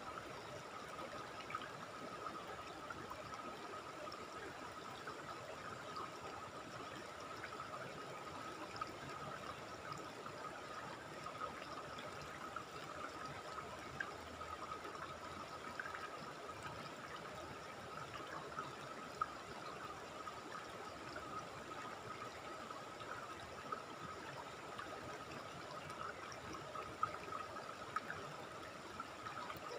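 River water rushing steadily over rocks in shallow rapids, with a steady high-pitched drone above it and a few small ticks.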